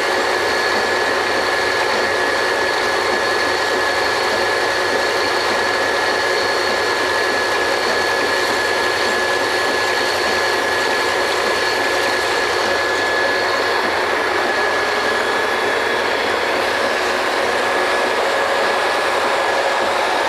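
Drilling rig machinery running steadily: a loud, constant mechanical din with a steady high whine over it.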